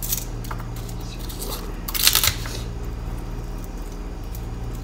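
Garlic cloves being peeled and scraped with a metal spoon: light papery rustling and handling clicks, with one short scrape about two seconds in, over a steady low hum.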